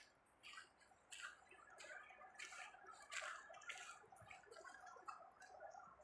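Faint footsteps crunching on a snow-dusted dirt road, about one step every two-thirds of a second, fading to lighter ticks near the end.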